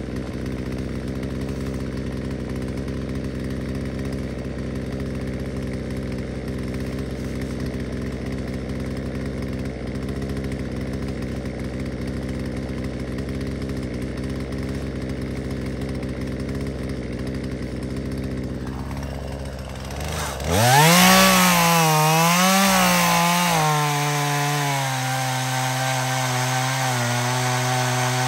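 Two-stroke chainsaw idling steadily, then opened up to high revs about two-thirds of the way through. Its pitch wavers and then settles a little lower and steady as the chain bites into the wood.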